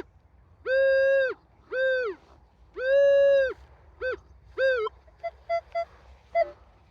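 Minelab Equinox 800 metal detector sounding a steady mid-pitched tone each time the coil passes over a buried target reading 24-25. There are five tones of varying length, then a few short, fainter, slightly higher blips near the end.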